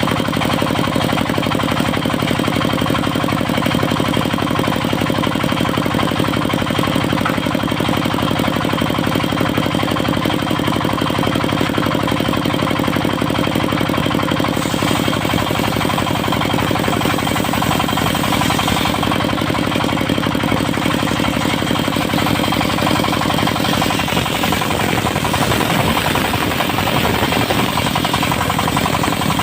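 Diesel engine of a portable circular-saw sawmill running steadily with a fast, knocking beat. About halfway through a hiss joins it, and in the last few seconds the engine note turns rough and uneven.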